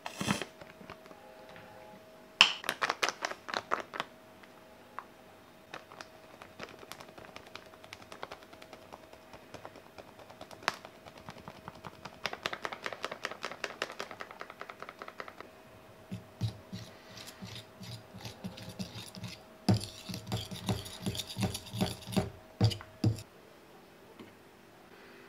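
A metal fork and spoon clicking and scraping against a glass mixing bowl of mashed banana and cocoa powder, in several runs of quick clicks and scrapes with pauses between; the last run, near the end, adds dull thuds.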